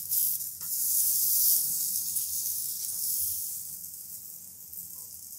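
Butter sizzling on a hot tawa under stuffed roti triangles being toasted: a steady hiss, loudest in the first couple of seconds and fading toward the end.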